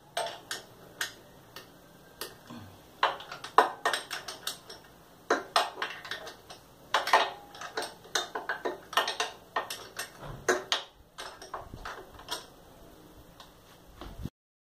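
Metal clicks and clinks of a hand wrench working bolts on a motorcycle's cylinder head, loosening them in turn. The clicks come in quick irregular clusters.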